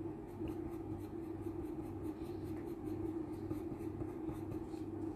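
Colored pencil scratching on paper in many short, repeated shading strokes, over a steady low hum.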